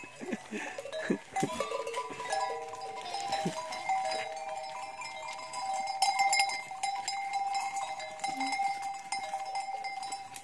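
Neck bells on a herd of goats clanking and ringing as the goats move about, several bells sounding together in a steady jangle.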